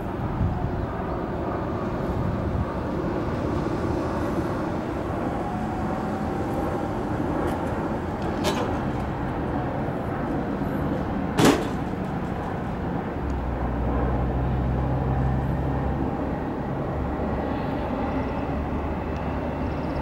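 Steady rumble of vehicle traffic. A sharp knock comes a little past halfway, and a deeper engine hum joins in the second half.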